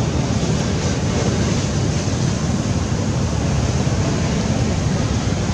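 Steady rushing noise of wind buffeting the microphone, heaviest in the low rumble, with no separate events standing out.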